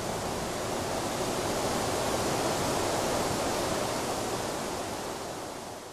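Steady rushing noise with no tone or rhythm, fading out near the end.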